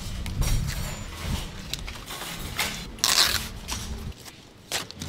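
Banana leaves rustling and crinkling as hands fold and roll them, with one louder rustle about three seconds in, over a low background rumble.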